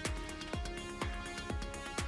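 Electronic background music with a steady beat, about two beats a second, over held synth notes.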